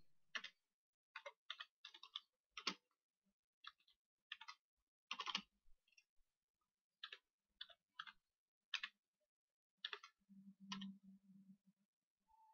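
Faint computer keyboard keystrokes: short, irregular clicks with pauses as text is typed a key at a time.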